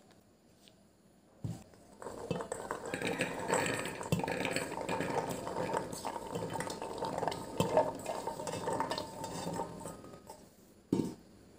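Chickpeas poured and pushed by hand from a steel bowl into a metal pressure cooker: a dense rattle of chickpeas hitting the pot, with clinks of the bowl against its rim. The rattle starts about two seconds in and lasts about eight seconds, with a single knock near the start and another near the end.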